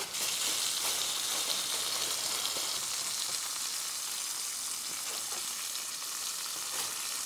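Steak sizzling steadily in a frying pan on a camp stove, with a sheet of tinfoil laid over the pan as a lid.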